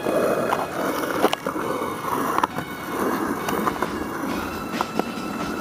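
Skateboard wheels rolling on a concrete driveway, a steady rough rumble, with a few sharp clicks along the way.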